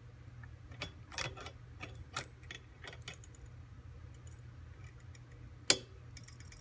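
Small metal clicks and clinks of lamp hardware being handled and fitted together, with one sharper click near the end.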